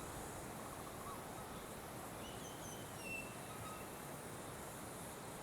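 Outdoor ambience: a steady background hiss with a few faint bird calls, short whistled notes in the middle.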